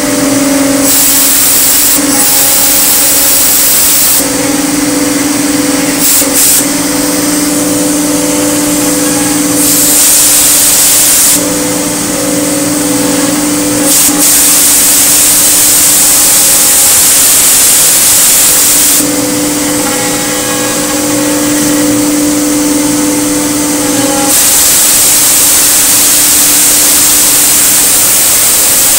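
Multicam MG205 CNC router running, its 15 HP spindle giving a steady whine, with a loud hiss that switches on and off every few seconds.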